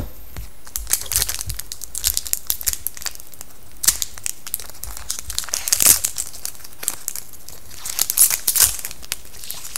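A foil trading-card pack wrapper crinkling and tearing as it is opened by hand, in irregular crackles that are loudest about six seconds in and again around eight seconds.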